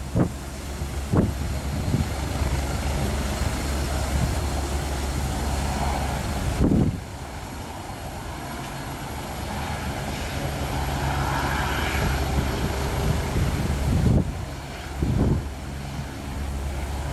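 Agusta A109E Power twin-turbine helicopter running on the ground with its rotor turning before takeoff: a steady turbine and rotor drone. A few short low rumbles break in, and the level drops abruptly about seven seconds in.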